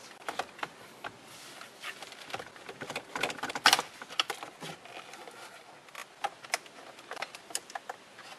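Plastic centre dash trim panel of a Honda Odyssey being handled and its wiring connectors unplugged: scattered plastic clicks and rattles, with a cluster of louder clicks about three and a half seconds in.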